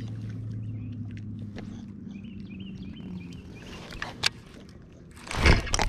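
Steady low hum of the kayak's electric trolling motor holding position, with a few sharp clicks and faint bird chirps. About five seconds in, a sudden loud rush of noise as the angler sweeps the rod to set the hook on a fish.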